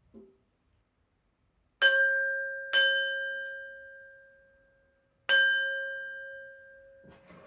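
A crystal glass struck three times, about two seconds in, a second later, and again about five seconds in, each strike ringing on with the same clear pitched tone that slowly fades.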